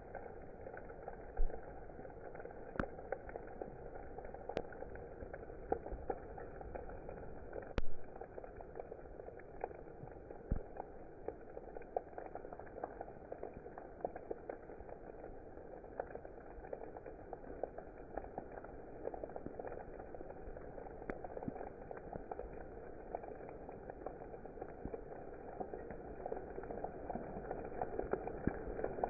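Steady rain with many individual drops tapping and dripping throughout, a couple of louder drop hits about one and a half and eight seconds in.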